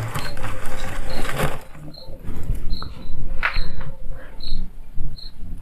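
A cricket chirping steadily, one short high chirp about every three-quarters of a second, over rustling noise and scattered clicks.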